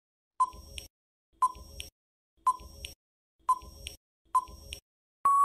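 Quiz countdown-timer sound effect: five short ticks, about one a second, then a steady electronic beep near the end marking time up.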